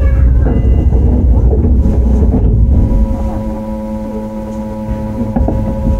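Shin-Keisei 8900 series electric train heard from on board, with Mitsubishi IGBT VVVF traction: a heavy low rumble of the running train with steady humming tones over it, easing slightly about halfway through.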